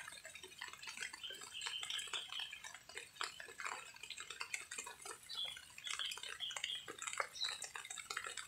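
A cat chewing and lapping soft rice food close by: a string of small, irregular wet smacking clicks.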